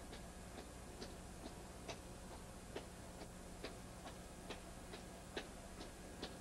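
Faint footfalls of a color guard marching in step on pavement: sharp heel strikes at an even pace, about two a second.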